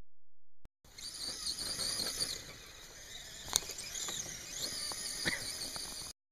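Scale RC rock crawler's electric motor and geared drivetrain whining, the high pitch wavering up and down with the throttle as it crawls, with a few sharp clicks from the tyres and chassis on twigs, the loudest about three seconds in.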